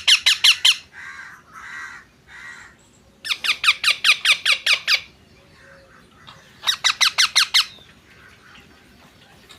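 Baby parrot giving rapid runs of harsh, high squawks at about six a second, in three bursts with a few softer calls between them: a chick's food-begging calls while it is being hand-fed.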